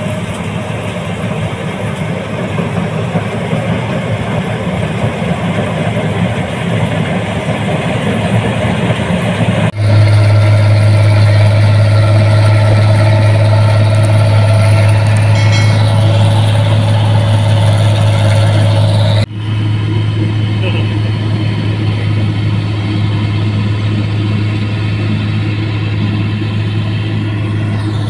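New Holland combine harvesters running steadily while cutting rice, engine and threshing machinery going without a break. It changes abruptly twice, about a third and two thirds of the way in, as one machine's sound gives way to another's; the middle machine has a strong, steady low hum.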